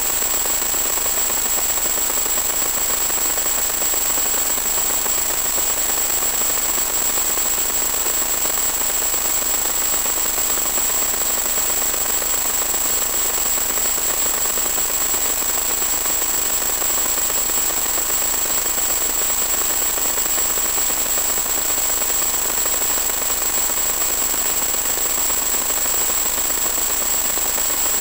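Steady hiss of static with a thin, high steady whine on top, from an analog 1.2 GHz FPV video link's audio channel that carries no sound of its own.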